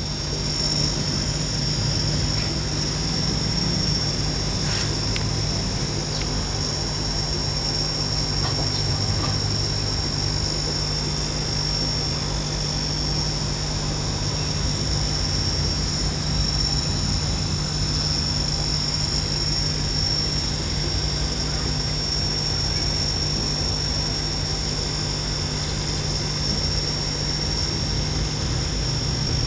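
Steady mechanical hum with a constant high-pitched whine above it, unchanging throughout.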